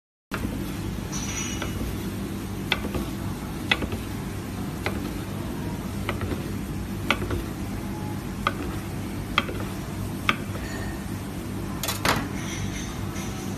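Knife slicing through a grilled meat roll, with a sharp click on the wooden cutting board about once a second at each cut, over a steady low hum.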